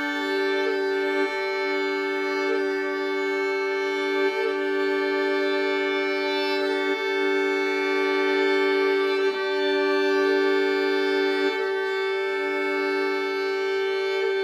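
Violin and viola holding two long, steady drone notes together, each note breaking off briefly at a bow change every couple of seconds, the two players changing bow at different moments.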